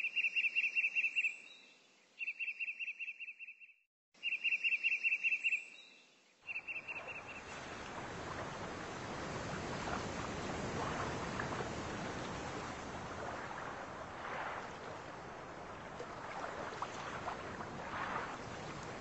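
Four short bursts of rapid, high chirping in the first seven seconds, followed by a steady rushing noise.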